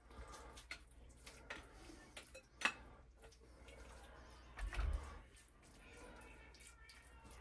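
Faint kitchen handling sounds: a spoon clinking and scraping against the dish as a wet chicken mixture is spooned over pasta in a baking pan. There is a sharp clink about two and a half seconds in and a dull low bump near five seconds.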